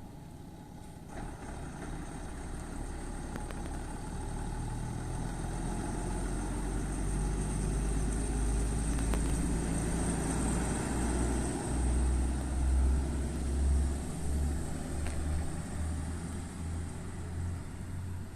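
A motor vehicle's engine running, its low rumble building over several seconds and loudest about two-thirds of the way through.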